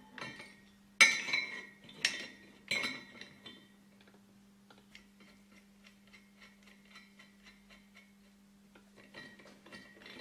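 Steel hydraulic bearing puller and spanner being fitted onto a compressor motor's fan hub: three sharp metal clanks in the first three seconds, then a run of light, evenly spaced metallic ticks as the puller is set in place.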